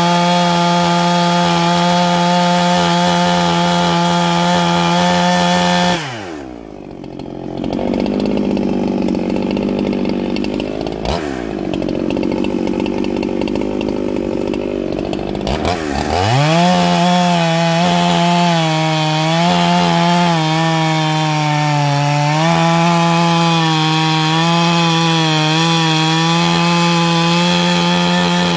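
Clone Husqvarna 395 two-stroke chainsaw cutting a log at full throttle. About six seconds in the revs fall away to idle as the saw comes out of the cut, with one brief blip of the throttle while idling. At about sixteen seconds it revs back up and cuts again, its pitch wavering under load.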